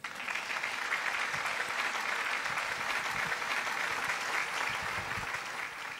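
Audience applauding, starting suddenly and fading away near the end.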